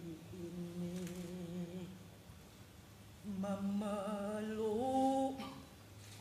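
A woman humming a slow, wordless melody in long held notes: one phrase, a short pause, then a second phrase that steps up in pitch near its end.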